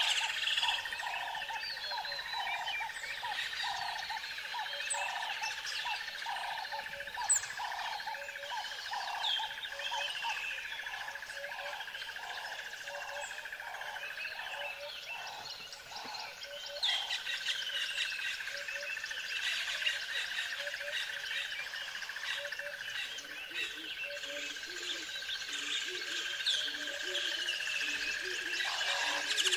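Outdoor nature ambience: many small birds chirping and twittering, with a steady high drone and a pulsing call that repeats over and over underneath. A lower pulsing call joins near the end.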